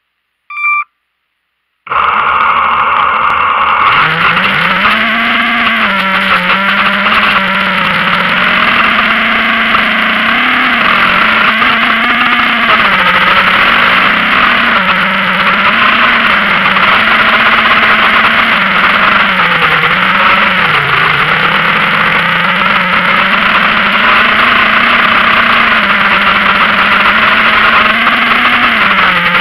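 A short beep, then from about two seconds a model aircraft's motor and propeller run, heard loud from the onboard camera, the pitch rising and falling with the throttle.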